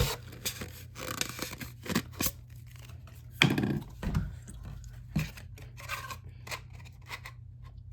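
Irregular rustling, scraping and small clicks of model rocket parts being handled and fitted together, with a louder knock about three and a half seconds in.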